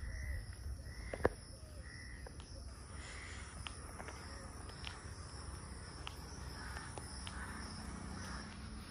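Quiet rural outdoor ambience: birds calling in short, repeated calls and a steady high insect drone over a low rumble of wind. There is one sharper click a little over a second in and a few faint ticks after it.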